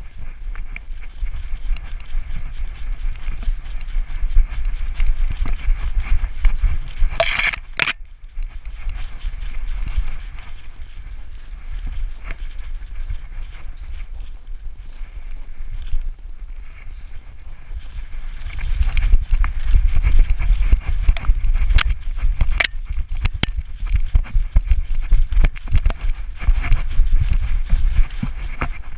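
Camera-eye sound of a dog running flat out through dry fallen leaves, with a GoPro Hero3 strapped to her back: a constant jostling rumble and wind on the microphone, with quick crunching and rustling of leaves and twigs underfoot. A brief, loud scratchy burst comes about seven seconds in, and the running gets louder and busier from about two-thirds of the way through.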